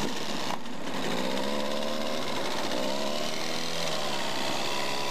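Small two-stroke outboard motor running under way, its pitch rising about a second in and shifting again near four seconds.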